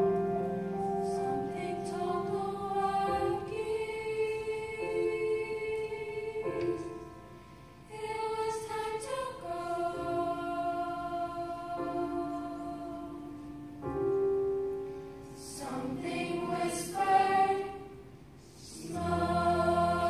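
Mixed-voice school chorus singing in parts, holding long sustained chords that move in steps. The sound thins out briefly twice, about a third of the way in and near the end, then the voices come back in.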